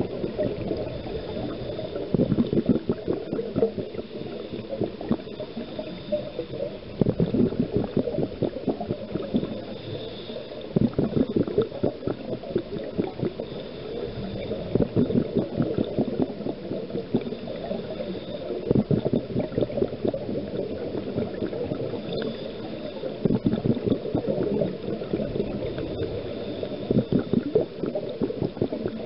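Scuba diver's exhaled bubbles gurgling out of the regulator in bursts about every four seconds, muffled as heard underwater.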